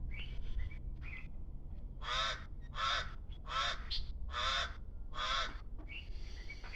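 A bird giving a series of five loud, harsh, evenly spaced calls, each under half a second, with a few softer calls before and after.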